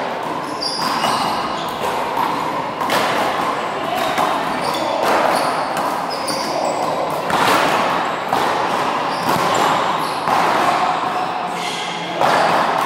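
Handball rally: the small rubber ball smacked by hand and striking the wall and floor about once a second, each hit echoing around the hall. Short high sneaker squeaks come between the hits.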